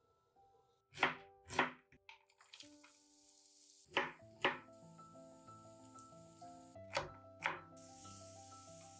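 Kitchen knife chopping vegetables on a wooden cutting board: three pairs of sharp chops, the two in each pair about half a second apart, over background music.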